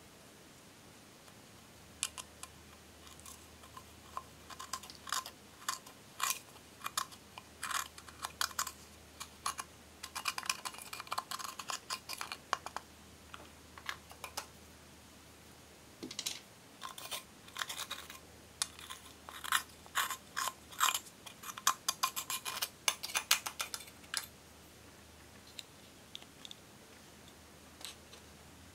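Baked powder eyeshadow being scraped out of its compact with a metal spatula and crumbled into a bowl of slime base: irregular dry crunching and scraping clicks in two long spells, tailing off to a few faint ticks near the end.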